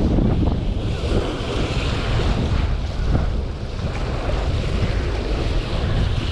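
Wind buffeting the microphone: a steady, rough low rumble that flickers irregularly.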